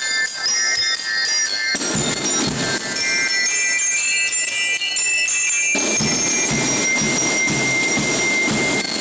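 Marching band playing: bugles or brass holding long notes over snare and bass drums, with bell lyres chiming high. The drumming drops back for a few seconds in the middle and comes in again near the end.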